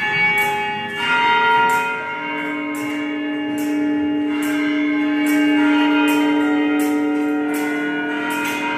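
Large bells struck, first at the start and again about a second in, then ringing on with a long, slowly fading hum.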